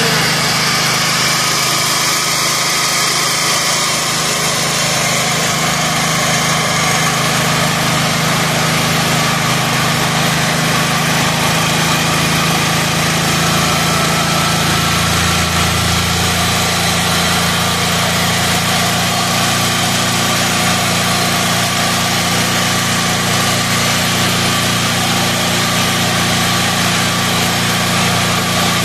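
Single-cylinder Honda GX engine of a Werken 6500 W generator running steadily, its speed being raised by turning the governor's adjusting screw. The engine is running slightly slow, with the output below 60 Hz, and picks up speed gradually as the frequency is brought up toward 60 Hz.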